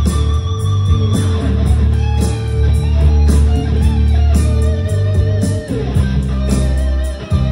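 Live instrumental guitar music: an electric guitar and a second strummed guitar, with held and bending lead notes over a deep, sustained bass part.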